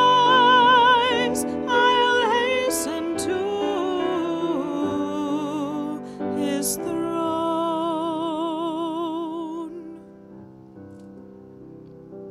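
A hymn sung with vibrato over keyboard accompaniment. The voice stops about ten seconds in, leaving a quieter held chord.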